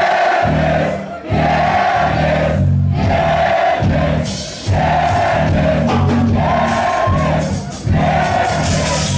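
Live rock band playing with a crowd singing along loudly, in repeated phrases about every second and a half over a steady bass line.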